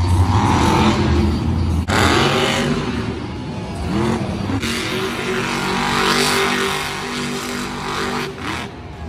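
Monster truck's supercharged V8 engine revving hard, its pitch swooping up and down through the first few seconds with a thump about two seconds in, then holding a steady high-revving note from about four and a half seconds until near the end.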